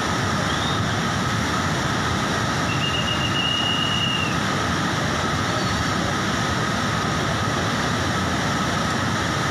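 Swat River in flood, a fast brown torrent rushing past a bridge in a loud, steady roar of water. A short high tone sounds briefly about three seconds in.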